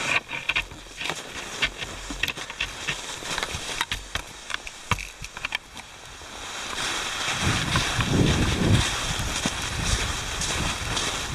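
Cross-country skiing heard from the skier's own camera: skis sliding in a groomed track and ski poles planting in snow, a string of short clicks and scrapes. From about six seconds in, a steady rush of wind on the microphone takes over, with low buffeting swells.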